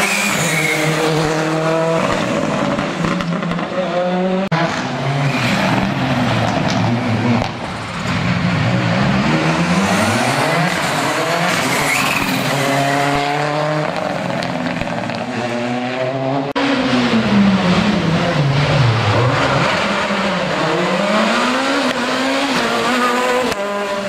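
Rally cars, among them a Volkswagen Polo, a Ford Fiesta and a Peugeot 207, passing one after another through a tight bend under hard driving. Each engine revs up and down sharply through braking, downshifts and acceleration, and the sound cuts abruptly from one car to the next several times.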